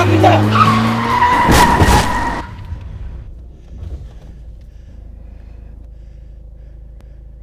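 Car tyres screeching in a skid, with two sharp knocks, cutting off suddenly about two and a half seconds in. What follows is a low, steady rumble of a car cabin.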